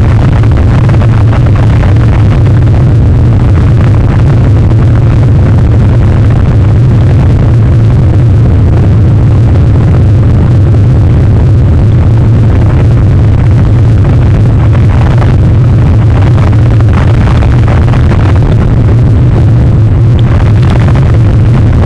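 Strong wind on the outdoor camera's microphone: a loud, steady low rumble with a rushing hiss over it.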